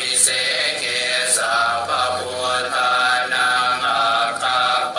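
Buddhist mantra chanting by a male voice, short phrases repeating in a steady rhythm with the pitch rising and falling, over a steady low hum.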